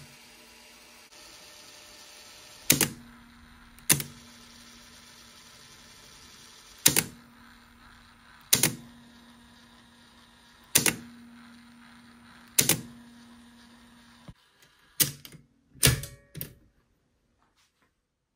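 A series of sharp mechanical clicks, seven spaced one to four seconds apart and then a quick cluster of four near the end, with a faint steady hum between them that stops just before the cluster.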